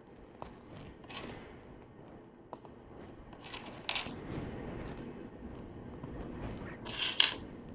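Plastic LEGO pieces being handled and pressed together: scattered sharp clicks and brief rattles and rustles, the loudest shortly before the end.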